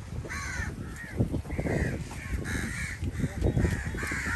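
Several crows cawing again and again, short harsh calls that overlap, over a low background rumble.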